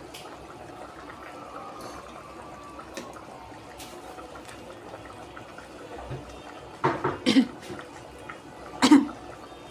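Liquid sounds of a thin curry in an aluminium cooking pot as fried hilsa fish pieces are put in and stirred with a spoon. A few short loud sounds come about seven seconds in, and one more near the end.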